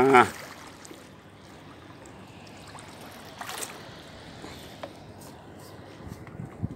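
Steady faint wash of water along the shore with a few faint clicks, about three and a half and five seconds in, as a small fish on the line is grabbed by hand.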